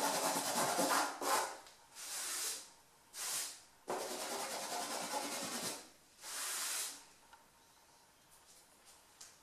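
Hand rubbing over a pencil drawing on paper, a hissy, scratchy sound in a run of separate strokes lasting half a second to two seconds each, growing faint from about seven seconds in.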